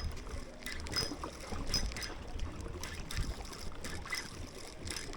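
Wind buffeting the microphone with water washing at the shoreline, plus a few faint scattered clicks.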